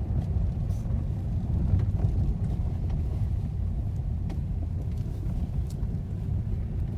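Steady low road and tyre rumble inside the cabin of a Lada Vesta Cross driving on asphalt, with a few faint light ticks.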